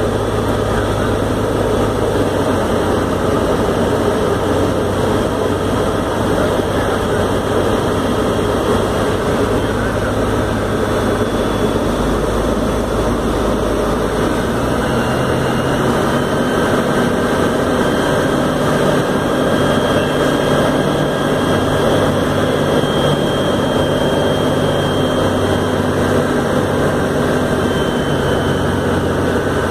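Light aircraft's piston engine and propeller running steadily at cruise, heard from inside the cockpit. Its note changes a little about halfway through.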